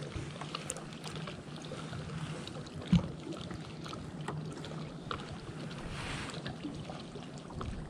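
Water lapping quietly against the hull of a small fishing boat drifting on a lake, a steady low wash with a few faint ticks, and a single low knock against the boat about three seconds in.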